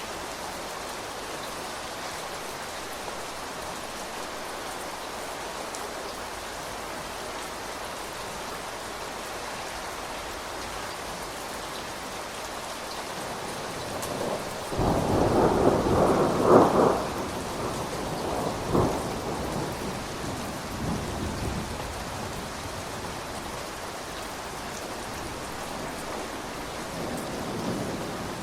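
Steady rain falling, with a clap of thunder about halfway through that rumbles loudly for a few seconds, with a second crack a couple of seconds later, before fading back into the rain.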